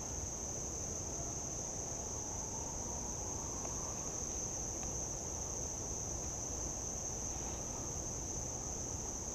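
Steady high-pitched chorus of insects such as crickets, unbroken throughout, over a low, even background rush.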